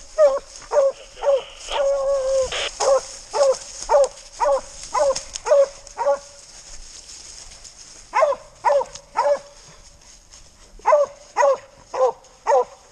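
Hunting hounds barking in an even rhythm, about two barks a second. The barking breaks off after about six seconds, comes back in a short run of three, and picks up again near the end.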